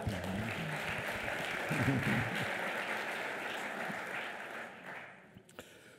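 Audience applauding steadily, then dying away about five seconds in.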